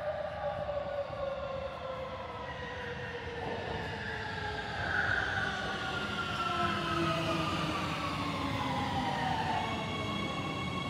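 Warsaw metro train pulling into the station and braking to a stop. The electric drive gives a whine of several tones that falls steadily in pitch over the rumble of the wheels, grows louder about halfway through, and settles into steady tones as the train comes to rest.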